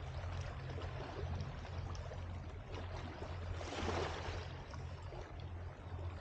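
Seashore ambience: a steady low hum under a wash of rushing noise that swells up about four seconds in.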